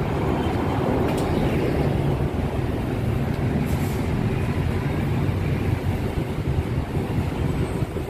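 A city bus driving past close by, followed by steady street traffic noise.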